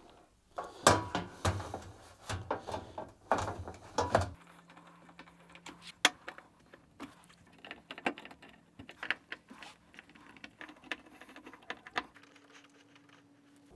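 A tumble dryer's front panel being handled and knocked into place against the chassis, a run of bumps and clatters over the first four seconds. Then a hand screwdriver turns in the panel screws, with faint scattered clicks and ticks.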